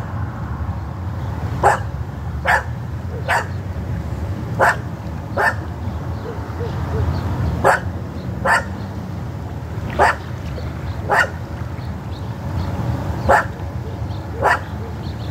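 A dog barking repeatedly: about a dozen short barks, several of them in pairs, with a steady low rumble underneath.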